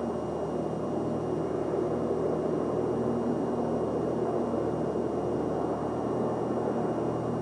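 Steady low hum and rumble of background room noise, with faint droning tones and no distinct events.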